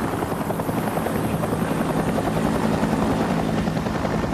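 Several Bell UH-1 Huey helicopters flying low past, their main rotors giving a rapid, steady chop.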